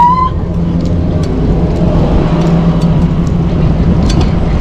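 Wind rushing over a handlebar-mounted action camera's microphone, with tyre rumble from a bike rolling on its back wheel over tarmac: a loud, steady rush with a low hum. A short high note rises and then holds right at the start, and a few faint clicks come later.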